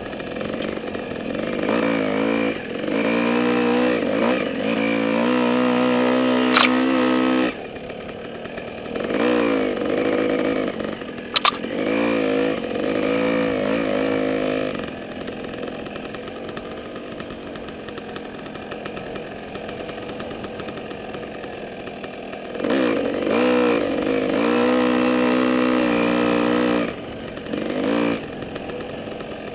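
Dirt bike engine revving up and dropping back in repeated bursts as the throttle is worked on a rough trail, falling to a quieter low run for several seconds in the middle. Two sharp knocks, about six and eleven seconds in.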